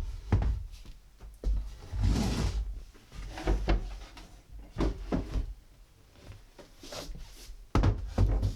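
Wooden dresser drawers being handled: a string of irregular knocks and thumps, with a longer stretch of a drawer scraping on its runners about two seconds in.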